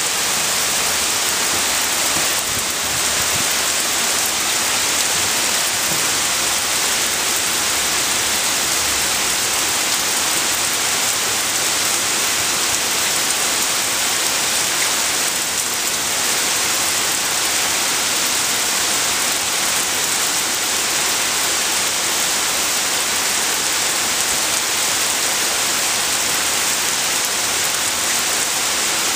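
Heavy rain pouring onto a puddled asphalt parking lot, a steady, even hiss that neither swells nor fades.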